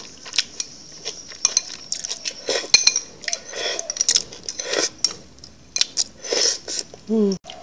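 Slurping ambuyat and fish soup straight from a glass bowl, with chopsticks clicking and clinking against the glass. The slurps come several times, and a short falling hum comes near the end.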